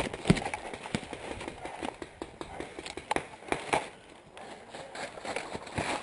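Irregular sharp pops and cracks from paintball markers firing nearby, mixed with crunching footsteps on dry leaf litter.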